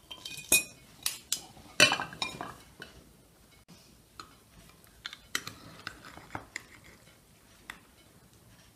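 Metal cake server and knife clinking and scraping against porcelain plates while portions of salad are served: a cluster of sharp clinks in the first two seconds, the loudest about two seconds in, then lighter taps that thin out near the end.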